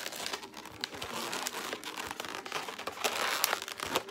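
Inflated latex modelling balloons rubbing and crinkling against each other and against the hands as they are twisted and pushed into place, busiest about three seconds in.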